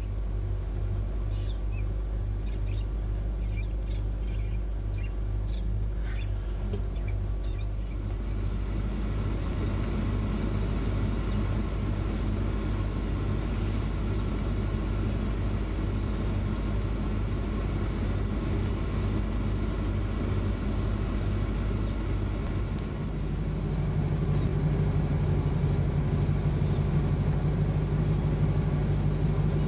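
A vehicle's engine running steadily, heard from inside the car as a low hum. About 23 seconds in the hum grows louder.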